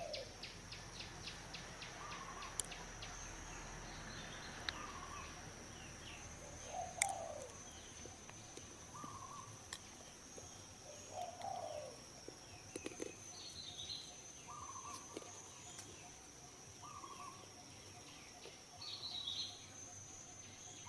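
Outdoor ambience: birds calling now and then, some low coo-like calls among short higher chirps, over a steady high insect drone. A rapid ticking fades out in the first couple of seconds.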